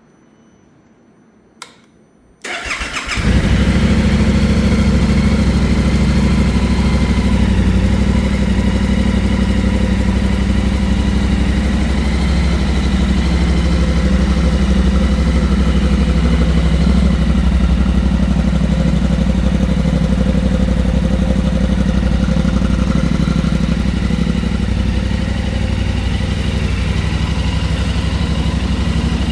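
A single click, then about two and a half seconds in the 2026 Yamaha Ténéré 700's 689 cc parallel-twin engine is started and catches at once. It then idles steadily.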